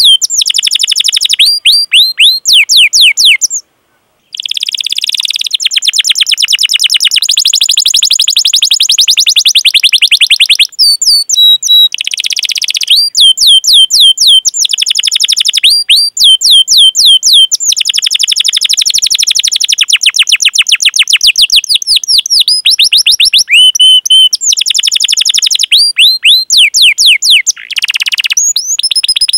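Canary singing: runs of sharp, downward-sweeping "cuit cuit" chirps alternating with long, fast rolled trills, with a brief break about four seconds in.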